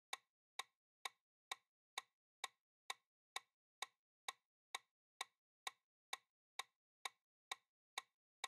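Countdown-timer ticking sound effect: short, even clicks, about two a second, marking the time left to answer.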